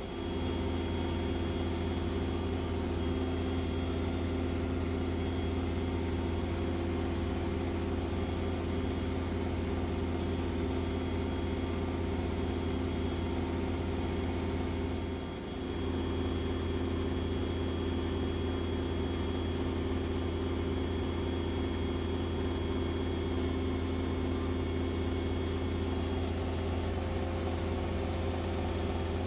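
An engine idling steadily, a low even hum that dips briefly about halfway through.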